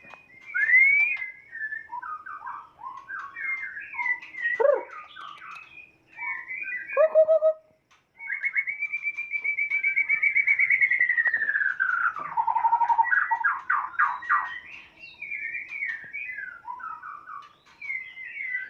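White-rumped shama (murai batu) singing a varied song of short whistled phrases. About halfway through it gives a long, fast trill that slides down in pitch.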